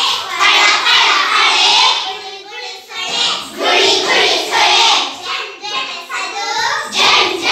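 A group of young children singing an action song together, in loud phrases of about a second with short breaks between.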